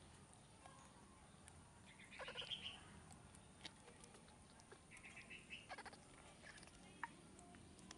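Faint squeaky calls from a baby monkey, in two short bursts about two seconds and five seconds in.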